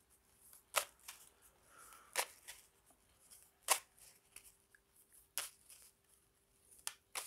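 Tarot deck being handled and shuffled, with a faint sharp card slap about every second and a half.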